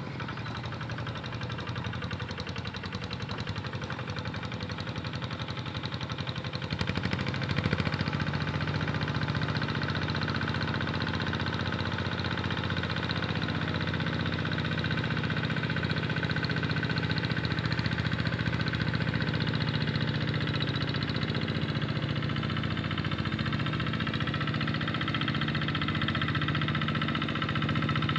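Tractor engine running steadily while ploughing a rice paddy, growing louder about seven seconds in and then holding steady.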